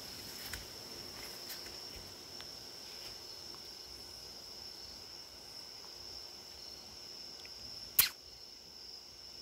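Crickets chirping in a steady high trill. There are a few faint ticks, and one sharp click near the end.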